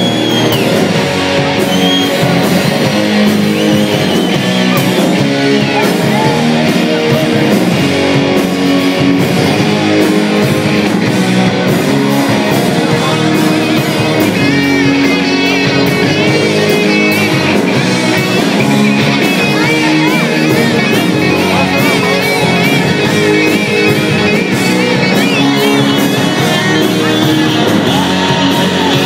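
Rock band playing live: loud, driving electric guitars with bass and drums, and a wavering lead line running over the top.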